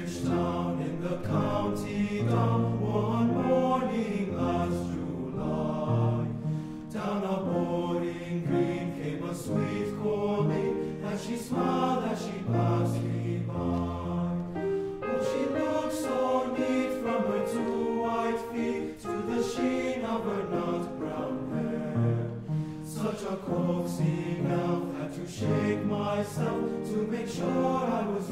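Men's choir singing chords in harmony, the parts moving through changing held notes over low bass notes.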